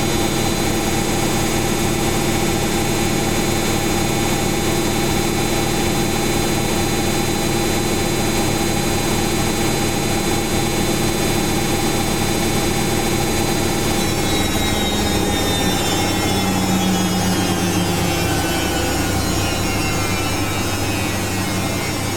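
Samsung Eco Bubble washing machine on its spin cycle: the drum and motor run with a steady loud hum and whine. About two-thirds of the way through, the high whine starts to slide down in pitch as the spin speed drops.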